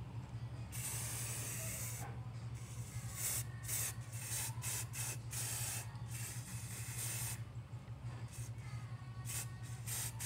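Aerosol spray paint can hissing in bursts: a long spray about a second in, a run of short quick sprays, another long spray past the middle, then a few more short sprays near the end.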